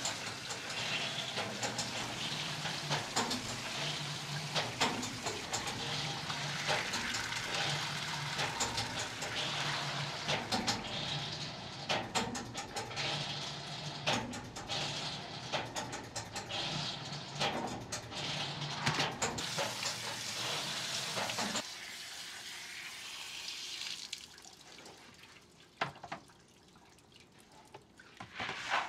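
Water pouring and splashing through plastic baskets as soaked soybeans are rinsed and drained, with many small clicks of the beans tumbling. About 21 seconds in, the pouring stops, leaving a few scattered knocks of the baskets.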